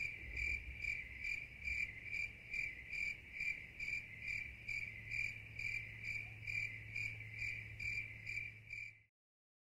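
Cricket chirping steadily, about two chirps a second, then cutting off suddenly near the end.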